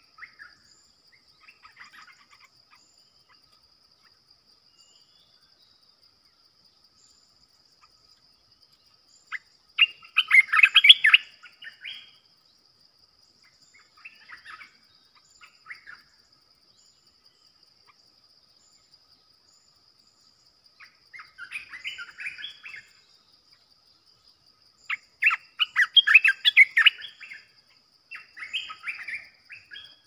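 A caged decoy bulbul singing in short bursts of rapid chattering notes, five times, with quiet gaps between. A steady high insect whine runs underneath.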